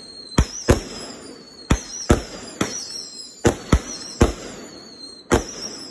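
A consumer multi-shot firework ("Jam Packed") firing: about nine sharp bangs in quick, irregular succession, some in close pairs, over a faint crackling haze.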